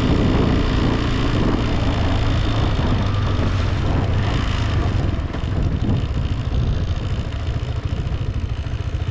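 Motorcycle engine running steadily while riding: the KTM 390 Adventure's single-cylinder engine under a continuous low rumble.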